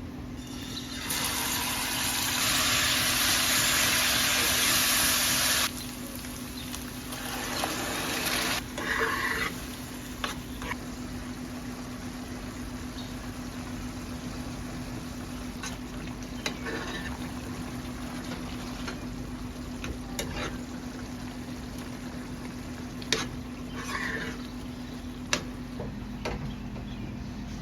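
Pot cooking: a loud hissing rush for about five seconds that cuts off suddenly, then scattered light clicks and knocks of utensils over a steady low hum.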